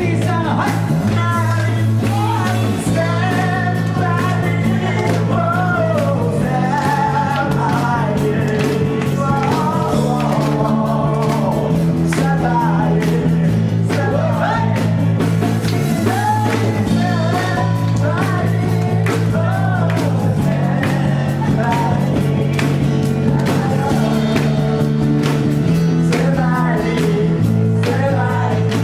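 Live band music: voices singing into microphones over strummed acoustic guitar and a low repeating bass line.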